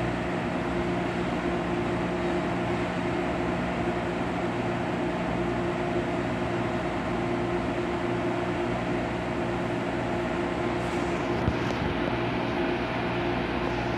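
Inside a CAF-built MTR Airport Express train car: steady running noise with a constant low hum. A single short click sounds about eleven seconds in.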